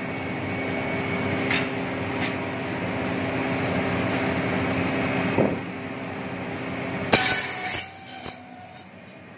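Bamboo satay-skewer slicing machine running with a steady hum while bamboo is fed through its rollers, with a few sharp clacks. A loud crackling burst comes about seven seconds in, and the machine noise drops off about a second later.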